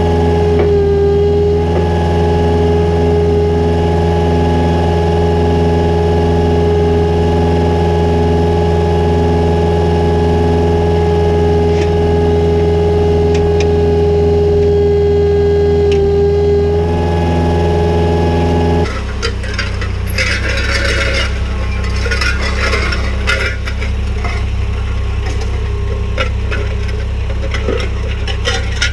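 Ford 4000 tractor engine running at a steady pitch while pulling. About two-thirds of the way through, the sound changes to a noisier clatter of engine and metal rattles, typical of the disc harrow working the ground.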